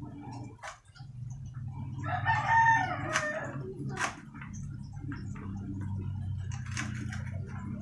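A rooster crows once, about two seconds in, over a steady low hum. A few sharp taps of a knife on a plate come through as well.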